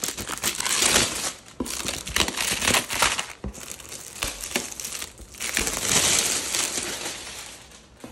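Clear plastic shrink wrap crinkling and crackling as it is peeled and pulled off a cardboard box, in stretches with brief pauses, dying away near the end.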